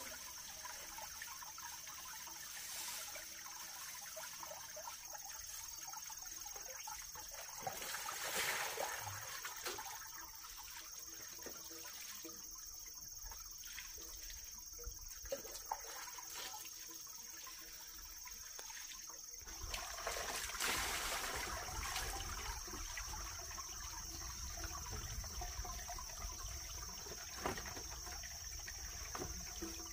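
Water trickling, with a few light knocks and two louder splashy stretches, about a third of the way in and again about two-thirds of the way in.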